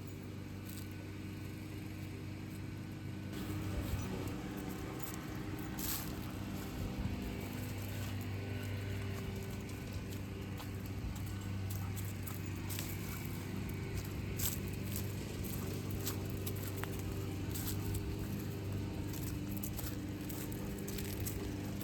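Golf cart driving along: a steady low motor hum over road noise, with scattered brief clicks and knocks.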